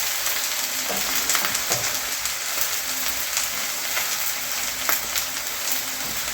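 Omena (small dried fish) dry-frying in a pan over low heat, giving a steady crackling sizzle as they turn crunchy, with a few sharper clicks as they are stirred.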